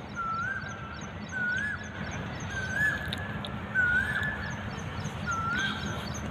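A dog whining, five high drawn-out whines about a second apart, each rising and then dropping off at the end.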